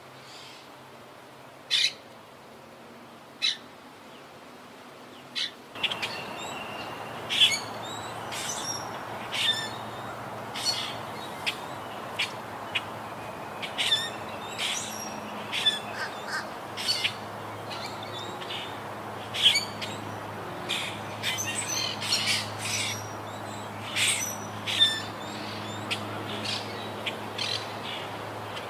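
Monk parakeets calling with short, sharp squawks. The calls are few and widely spaced for the first five seconds or so. Then, over a louder steady background hiss, they come thick and fast, often several a second.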